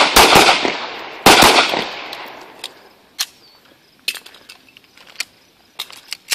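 Handgun shots in quick succession, loud and sharp, each trailing off in an echo. One comes right at the start and a pair follows about a second and a half in. After that come only fainter, scattered sharp clicks.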